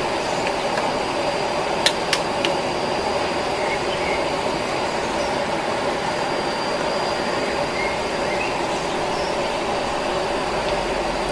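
Steady rushing of a stream over rocks, with a thin high steady tone above it and a couple of sharp clicks about two seconds in.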